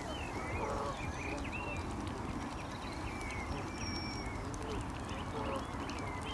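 Small birds chirping and twittering throughout over a steady low rumble, with a Canada goose honking briefly near the start and again near the end.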